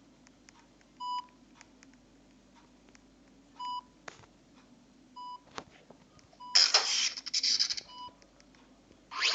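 An electronic beeper sounding five short single-pitch beeps, one every one and a half to two and a half seconds. Between the later beeps come loud rushes of hissing noise, one lasting about a second and a half and another starting near the end and fading.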